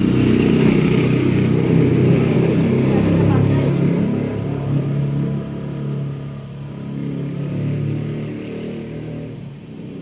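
A motorcycle engine running close by, with voices over it. The sound starts suddenly and eases off over the last few seconds.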